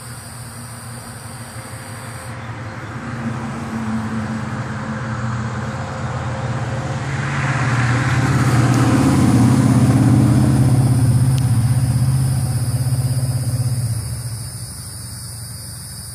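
A road vehicle passing close by: engine and tyre noise swell to a peak around eight to twelve seconds in, then fade away by about fourteen seconds.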